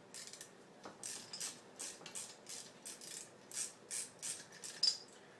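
Hand tool working on a moped engine: a run of short scraping, clicking strokes, about three a second.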